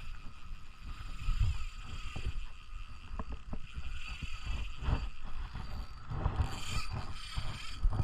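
Fishing reel clicking and ratcheting in irregular bursts, over low rumbling on the microphone.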